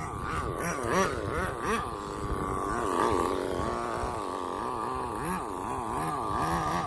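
Tamiya FS18LT two-stroke glow engine with a tuned manifold and muffler, running on a nitro RC car and revving up and down in quick repeated throttle blips.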